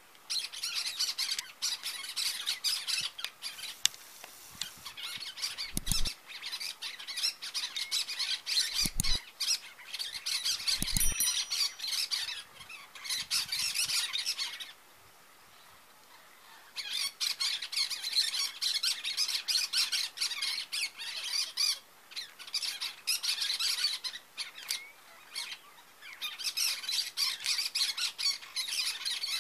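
Cactus parakeets (Eupsittula cactorum) squawking in dense runs of harsh, rapid calls. The calls stop for about two seconds midway, then start again. A few dull low thumps come in the first half.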